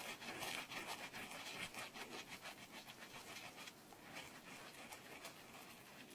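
Quick close-miked scratching strokes, several a second, rubbed right on the microphone: ASMR grooming scratches. Loudest in the first half, softer after about four seconds.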